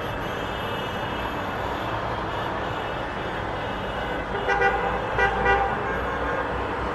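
Celebration noise: horns tooting over a steady, dense din, with a louder burst of several horn tones about four and a half to six seconds in.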